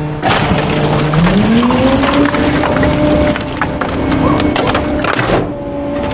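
Rear-loader garbage truck compacting a load: the engine revs up about a second in and holds higher as the hydraulic packer blade sweeps down onto a mattress and wooden boards, with repeated cracking and snapping of the wood.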